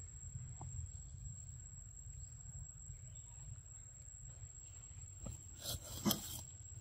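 Outdoor forest ambience: a thin, steady high-pitched insect drone over a low rumble, broken about six seconds in by a brief rustle with a sharp click.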